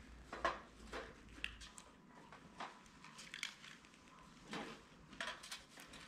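Scattered light clinks and knocks of steel surgical instruments being picked up and set down in a metal instrument tray.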